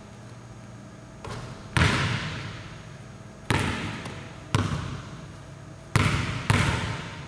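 Basketball bouncing on a hardwood gym floor: a faint knock, then five loud bounces at uneven intervals, each echoing through the gym.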